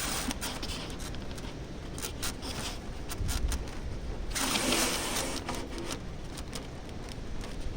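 Irregular scraping and clicking handling noises, with a longer rough scrape about halfway through.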